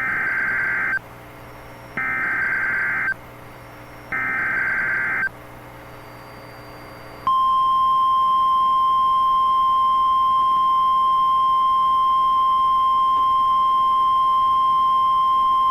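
Emergency Alert System SAME header: three bursts of warbling digital data tones, each about a second long, about a second apart. About seven seconds in, a single steady high beep begins: the NOAA Weather Radio 1050 Hz warning alarm tone. Together they signal the start of a tornado warning broadcast.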